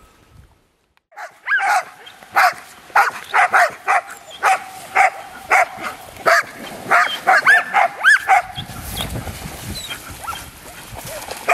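A pack of dogs, Groenendael Belgian Shepherds among them, barking and yipping excitedly in short, high calls, about two a second, starting after about a second of silence.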